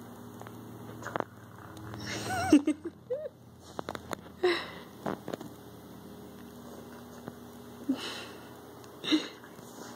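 Four short sniffs up close, with a brief squeaky grunt about two and a half seconds in, the loudest sound here.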